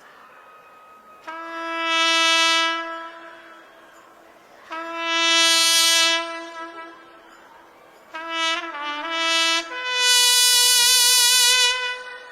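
Trumpet playing slow, long held notes that swell louder: two long notes on the same pitch, a shorter phrase with a bend in pitch, then a higher held note near the end.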